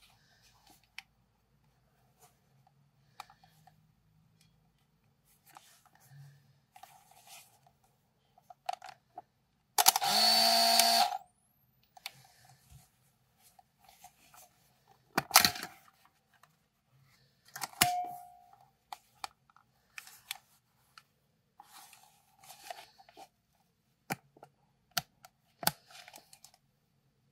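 A Fuji DL 95 (Discovery 90) 35mm compact film camera being operated. About ten seconds in, its small internal motor whirs for roughly a second and a half, its pitch rising as it spins up, and a faint high whine climbs in pitch right after it. Sharp clicks from the camera follow a few seconds later, with light handling noises from the plastic body throughout.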